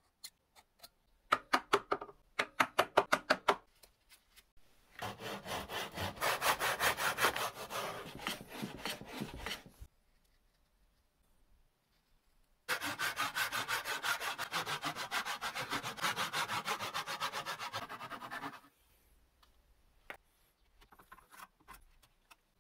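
A tenon saw cutting through wood in two long runs of quick, even strokes. Before them comes a burst of short, sharp strokes from a marking knife scored along a square; near the end there are a few light clicks and scrapes of a chisel paring the wood.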